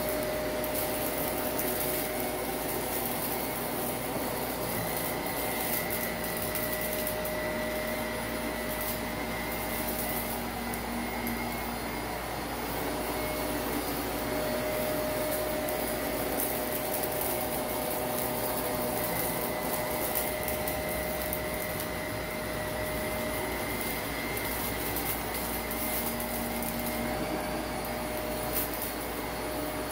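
Shark Navigator upright vacuum cleaner running steadily over a shaggy carpet as it is pushed back and forth, with a faint crackle of grit being sucked up.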